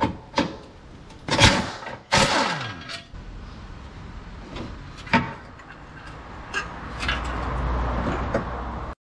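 Metal knocks, clanks and scraping as the lower rear engine mount of a Mitsubishi Lancer Fortis is worked loose and pulled out by hand. There are two louder, longer scrapes about one and a half and two seconds in, the second falling in pitch, and a steady rushing noise builds from about seven seconds in and cuts off suddenly just before the end.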